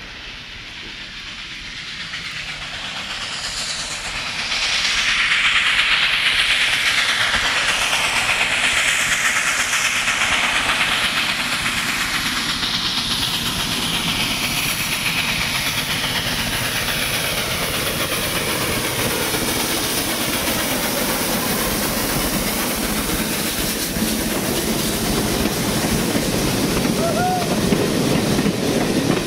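Robert Dollar #3, a 2-6-2 steam tank locomotive, approaching and passing with its train of passenger cars: steam hissing that grows loud about four seconds in, then a steady rush of the cars' wheels on the rails.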